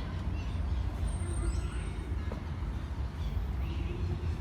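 City park ambience: a steady low rumble of distant traffic, with faint voices and a few faint chirps.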